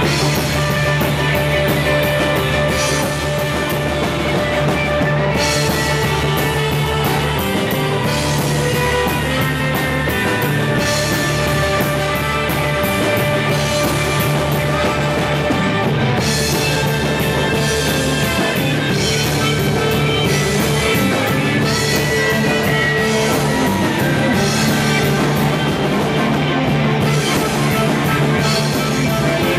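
Live rock band playing loudly: electric guitar over drums, with cymbals keeping a steady beat.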